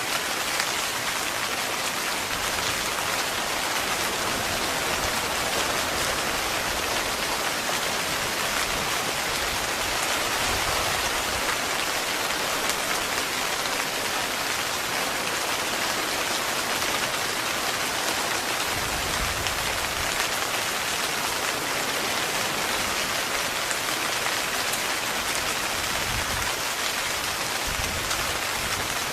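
Steady heavy rain pattering on a tent's fabric, dense and even, with a few brief low rumbles underneath.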